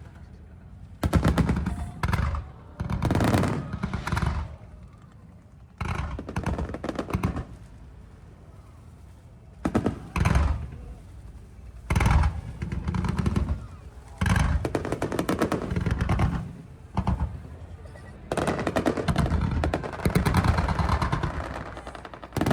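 Aerial fireworks going off in rapid volleys of crackling bangs: about ten clusters of quick reports, each a second or two long, with a longer continuous run near the end.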